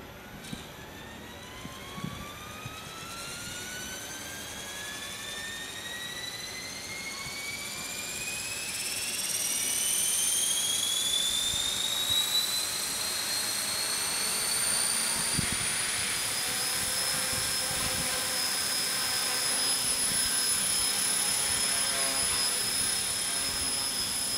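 Align T-Rex 450 RC helicopter's electric motor and four-blade rotor spooling up: a whine that rises steadily in pitch and grows louder for about fifteen seconds, then holds at a steady head speed.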